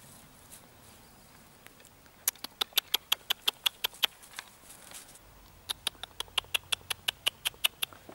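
Rubber dog toy squeaking in quick runs as a puppy chomps on it, about five or six short, high squeaks a second, in two bursts of about two seconds each.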